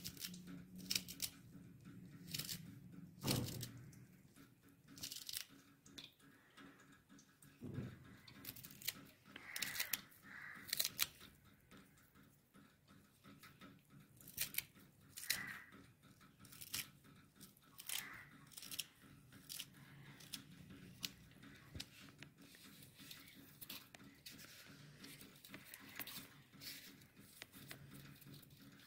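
Quiet, scattered sharp snips and clicks as a green chilli is cut with kitchen scissors over a steel mixing bowl of mashed potato filling.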